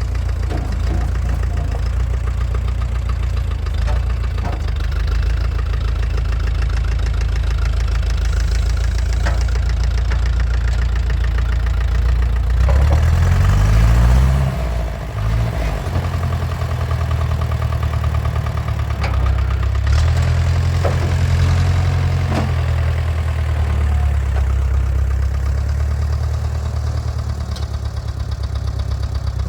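International 3414 backhoe's diesel engine running steadily, revving up with a rising pitch about halfway through and dropping back a second or two later, with a few sharp metallic knocks.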